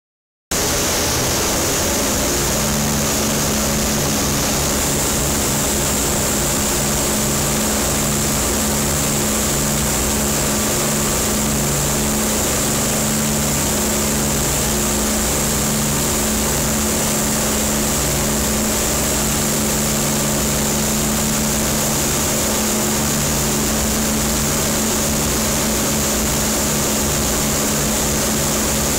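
The four Rolls-Royce Merlin V12 engines of Lancaster bomber PA474 running steadily in flight, heard from inside the aircraft, with an uneven pulsing under the drone and a constant rush of air. The sound cuts in about half a second in and then holds unchanged.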